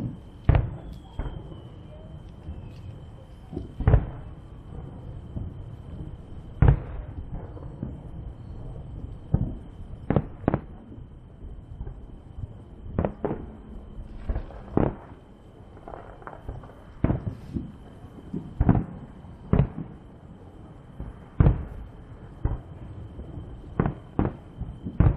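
Fireworks going off: about twenty sharp bangs at irregular intervals, some louder and closer than others, over a low rumble.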